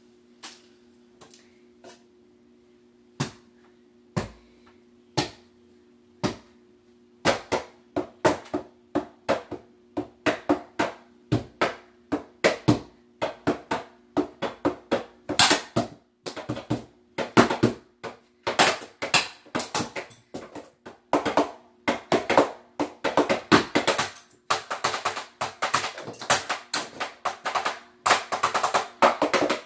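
Drum set being played: a few single strikes about a second apart, then from about seven seconds in a steady run of beats that gets busier toward the end.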